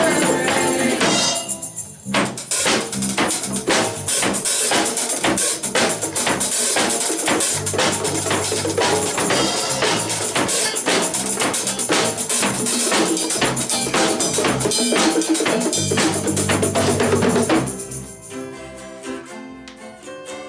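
A live band plays an upbeat groove on drum kit, tambourine, bongos, congas and electric bass, with a short break about two seconds in. The band stops about seventeen seconds in, and softer acoustic guitar playing follows.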